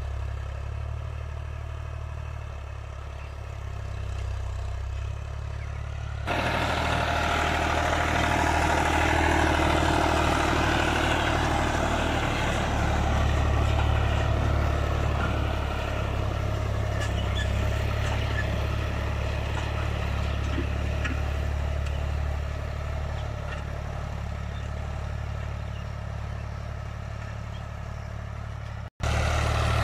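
Diesel tractor engine running steadily while pulling a disc harrow through a field. About six seconds in the sound changes abruptly and becomes louder and fuller, and it cuts out for a moment near the end.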